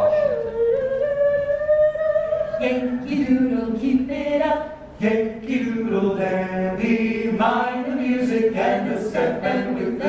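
A cappella vocal ensemble of mixed men's and women's voices singing in close harmony, with a brief break about five seconds in.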